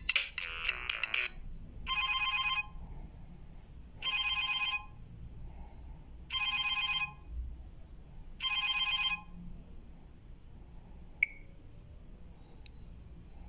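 Classic phone-ring style ringtone from the Alcatel OT-2005D, played through a Samsung GT-B7722i phone's loudspeaker: four short electronic rings about two seconds apart. It follows the tail of a busier melodic ringtone in the first second, and a single faint click comes near the end.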